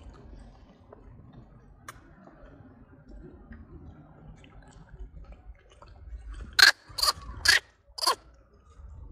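Four short, harsh animal calls about half a second apart, starting near the end, over a faint low background.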